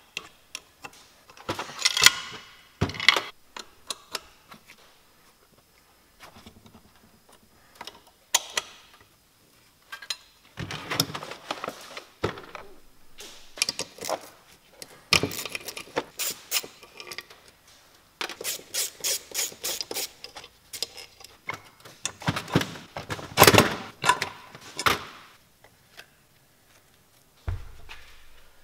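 Hand tools working on a pair of Weber DCOE carburettors: scattered metallic clinks, clicks and knocks as fittings are undone and parts are handled, with a quick run of even clicks about two-thirds of the way through.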